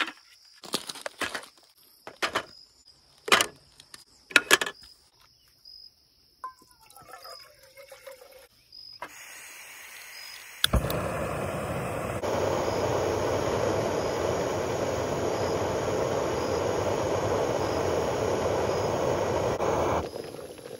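A few sharp clacks from a folding aluminium-slat camp table being set up. About halfway through, a click as a Jetboil canister stove is lit, then the gas burner runs with a loud, steady roar that cuts off suddenly near the end.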